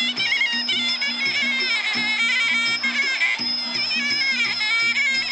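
Muay Thai fight music: a Thai pi java, a shrill double-reed oboe, playing a wavering, ornamented melody over a steady, repeating beat of klong khaek drums.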